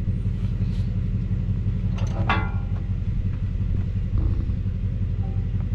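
Engine idling steadily close by, a low even rumble, with a brief higher-pitched sound about two seconds in.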